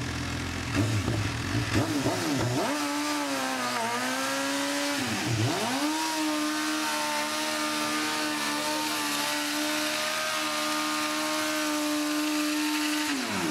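MV Agusta F4 1000's inline-four, on a non-road-legal exhaust, held at high revs in a stationary burnout with the rear tyre spinning on the spot. A few rev blips come first, the revs dip twice, then hold steady for about seven seconds before the throttle is shut near the end.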